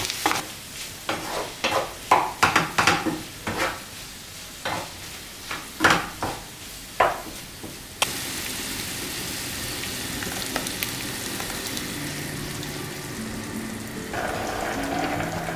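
Irregular scraping or brushing strokes for about eight seconds, then an abrupt switch to a steady hiss.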